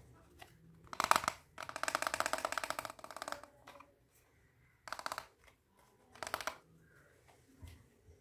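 Small hard plastic toy pieces being handled, clicking and rattling in rapid runs: a long run of about two seconds starting about a second in, then two short ones.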